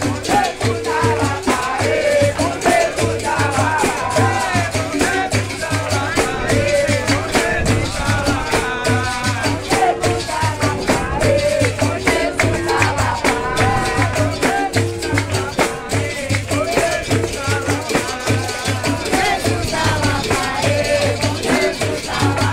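Live capoeira roda music: a berimbau with its caxixi rattle keeping a repeating rhythm, other percussion, and group singing over it.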